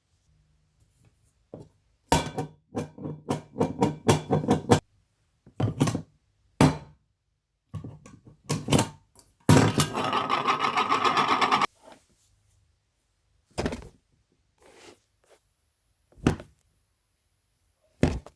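A series of separate knocks and thuds, a quick cluster of them a couple of seconds in, then single hits, with a fast, even mechanical rattle lasting about two seconds near the middle.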